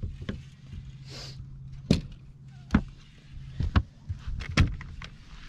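Sharp knocks and thumps on a fishing boat's deck and hull, about six in a few seconds, the loudest about two, three and four and a half seconds in. A steady low hum runs underneath.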